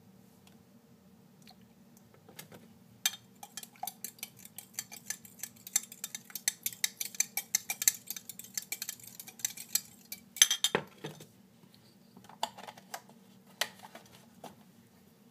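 Metal spoon beating eggs in a glass Pyrex measuring cup: fast clinking of metal on glass for about seven seconds, then a loud clunk about ten seconds in as the cup is put down, and a few single clinks after.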